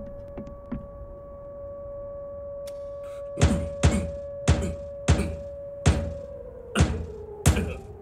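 A run of seven heavy thuds, about one every two-thirds of a second, starting a few seconds in, over a steady low humming drone.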